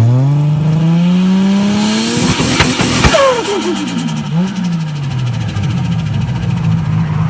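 Turbocharged car engine revving up in one rising sweep, then, on the throttle lift about three seconds in, a loud burst and a rapid fluttering chatter of the turbo as the revs fall back to a steady idle.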